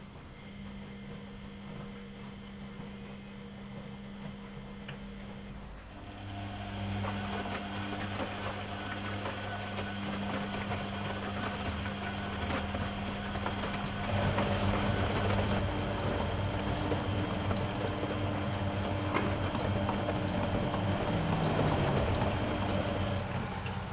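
Privileg 370 S washing machine running with a steady motor hum. About six seconds in it grows louder and busier, steps up again around fourteen seconds, and eases off just before the end.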